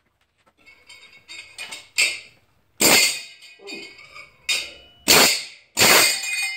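Pneumatic air hammer built as a tiny power hammer, its heat-treated S7 steel die rattling against metal on an anvil in several short bursts, after a few lighter clinks of setting up.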